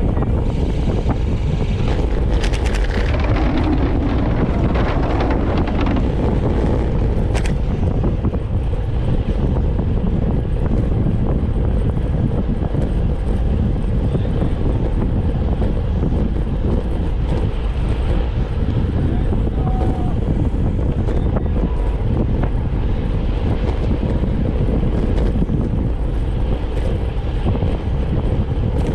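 Steady low rumble with wind buffeting the microphone while travelling along a road.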